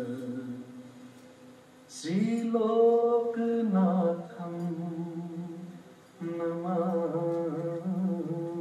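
Charya song, the Newar Buddhist devotional song sung for Charya dance, carried by a single voice in slow, long held notes that waver slightly. One phrase fades out, a new one begins about two seconds in, and after a brief break near six seconds another phrase starts.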